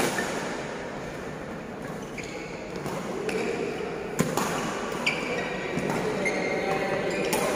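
Badminton doubles rally: rackets smack the shuttlecock every second or two, the sharpest hits about four seconds in and near the end. Short high squeaks of shoes on the court mat come between the hits, and the large hall adds an echo.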